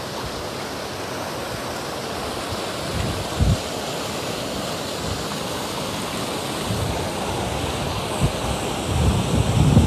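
Muddy rain runoff rushing through a gap in a field bank like a small waterfall, a steady rush of water. Low buffets of wind on the microphone about three and a half seconds in and again near the end.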